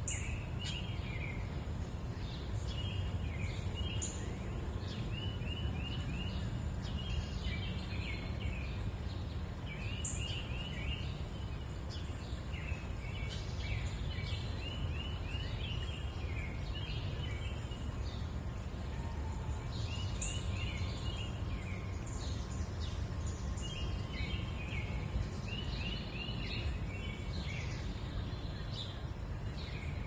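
Steady rush of a shallow woodland creek flowing over a riffle, with birds calling on top: short chirps and quick runs of four or five high notes, repeated every few seconds.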